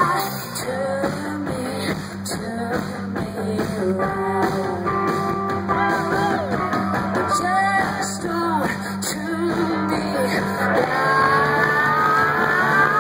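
Live rock band playing: electric guitars, bass and drums, with a woman singing. A low held note changes about eleven seconds in, and rising sliding lines come in near the end.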